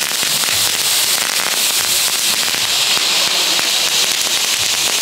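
Small ground firework fountains hissing steadily as they spray sparks, over a dense crackle of small pops from other F1 fireworks burning around them.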